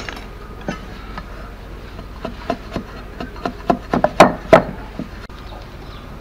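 Heavy machete-like knife chopping and trimming the end of a thin bamboo strip on a wooden block: a run of about a dozen sharp wooden knocks, the loudest two near the end of the run.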